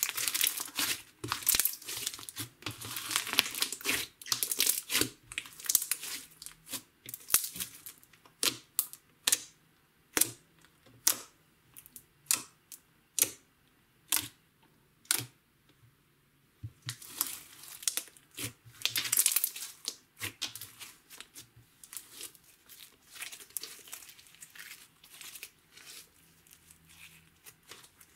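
Green glitter slime crackling and popping as hands press and knead it. In the middle come separate sharp pops, about one a second, as fingers poke into it. Then the crackling thickens again as it is folded.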